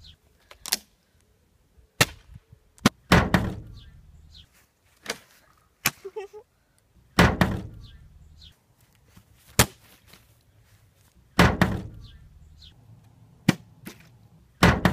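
Partly filled plastic water bottle landing after flips: a series of sharp thunks a second or two apart, several of them on a wooden table.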